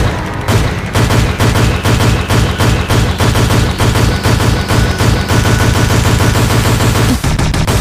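Loud electronic background music with a driving beat of rapid, heavy percussive hits.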